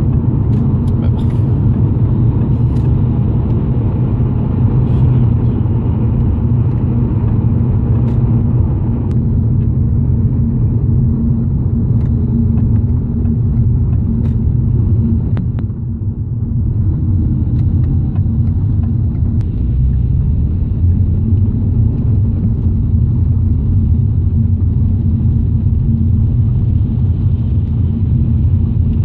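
Steady road and engine noise inside a moving BMW's cabin: low tyre rumble with a constant engine drone, easing briefly about halfway through.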